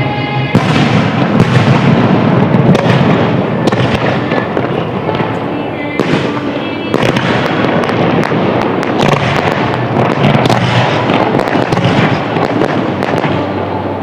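Fireworks display: a dense barrage of shells bursting, with continuous crackling and many sharp reports. Fresh volleys break out about half a second in and again about six seconds in.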